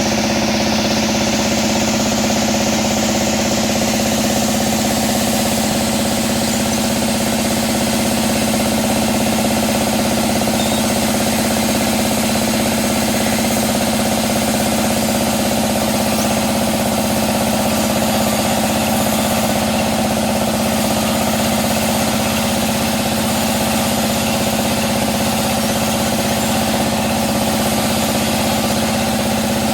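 Sawmill band saw machinery running steadily: a constant hum with a broad hiss over it.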